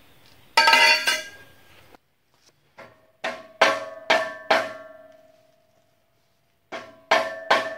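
Mallet blows on the Bronco's metal exhaust tailpipe, knocking the pipe loose to remove it. The sharp strikes come in runs of three to five, about half a second apart, and each leaves the hollow pipe ringing with a clear tone.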